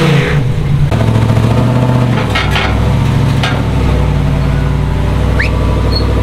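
Chevrolet C/K pickup's engine revving briefly, then running at a steady idle, with a few sharp clicks partway through and a short rising chirp near the end.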